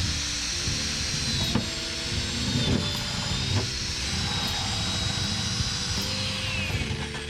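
A power tool running steadily with a high, slightly wavering whine, easing off near the end, over background music.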